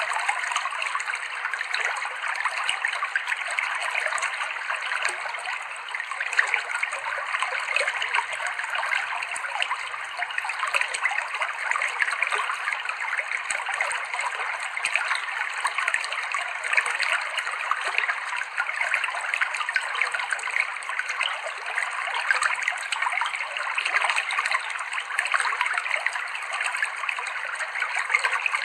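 Clear stream water flowing and splashing over rocks: a steady babbling trickle with no deep rumble.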